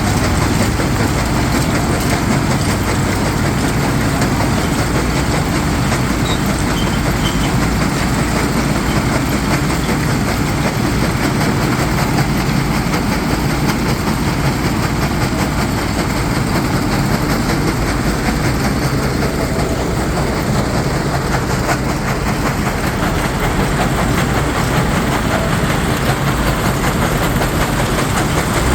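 Stone crusher running with a heavy diesel engine: a steady, loud, dense rumble and clatter of rock being crushed.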